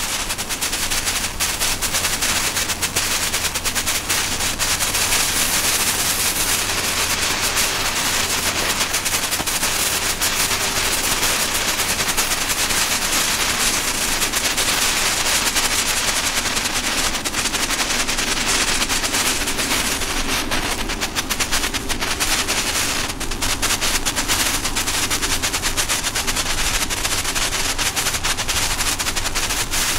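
'Flash' strobe fountains, children's fireworks, burning on the ground, giving off a continuous rapid crackle of small, closely packed pops.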